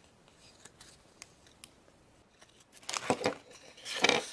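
Faint clicks of small objects being handled, then two short bursts of paper rustling and crinkling near the end as a folded paper leaflet from a toy capsule is unfolded.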